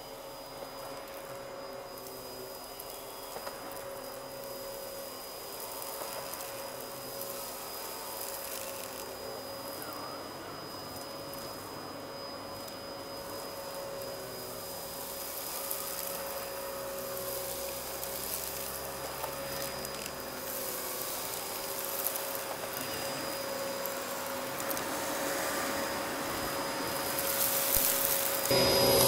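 Dyson DC14 upright vacuum cleaner running steadily on carpet, a constant motor whine over airflow noise, getting much louder near the end as it comes close.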